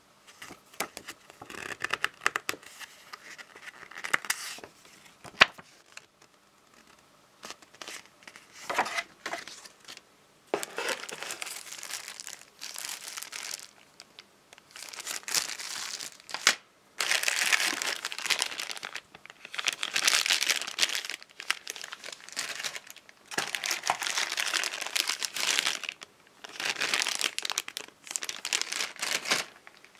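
Thin plastic packaging bags crinkling as hands handle them, in irregular bursts that become louder and almost continuous after about ten seconds; the first third holds sparser rustles and a few sharp clicks.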